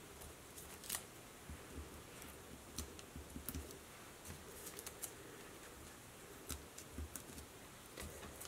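Faint, scattered small clicks and rustles of paper pieces and adhesive dots being handled, a dozen or so irregular ticks over a low background.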